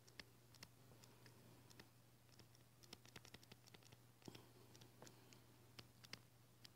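Faint, irregular clicks and taps of a stylus on a tablet touchscreen during handwriting, over a steady low hum.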